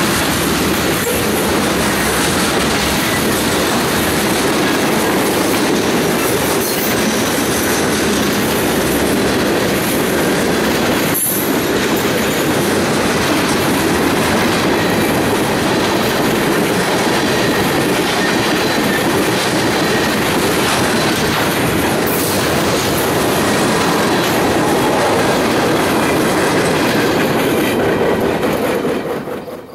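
Freight cars rolling past on steel wheels, a loud steady rumble with the clickety-clack of wheels over rail joints and one sharp knock about eleven seconds in. The sound falls away near the end as the last car passes.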